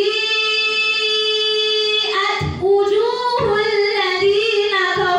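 A woman reciting the Qur'an in melodic tajweed style: one long note held steady for about two seconds, then a wavering, ornamented melodic line.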